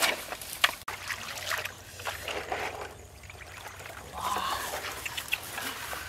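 Pond water sloshing and splashing as a wok of eggs is dipped and swirled to rinse them, with short sharp ticks and splashes, busiest in the first few seconds.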